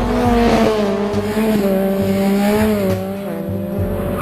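A vehicle engine held at high revs in a steady drone, its pitch sagging slightly about three seconds in.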